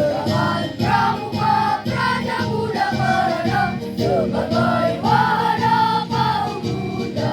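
A choir singing a march over a rhythmic instrumental backing, the voices coming in right at the start.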